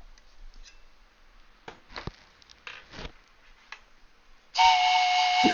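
A few soft rustles, then near the end a loud, steady whistling tone starts suddenly and holds.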